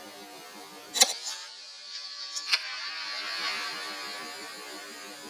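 Single shot from a Huben K1 PCP air rifle about a second in: a sharp crack with a brief ring, followed about a second and a half later by a smaller click and a hiss. A faint steady electronic hum from the scope runs underneath.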